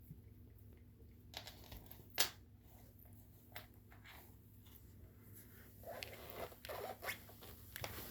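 A cat scratching and rustling about, in short scratchy strokes with one sharp click about two seconds in and a busier run of rustling near the end.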